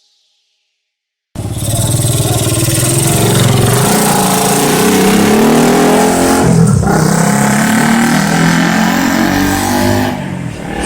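Bus engine running loud and close beside the road, cutting in abruptly about a second in, its pitch rising and falling as it revs, with a brief dip in the middle.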